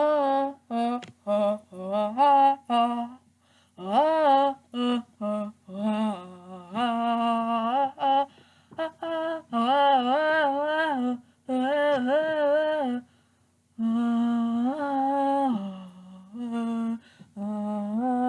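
A single voice humming a wordless tune, unaccompanied, in short detached notes and longer held ones with vibrato, broken by brief pauses between phrases.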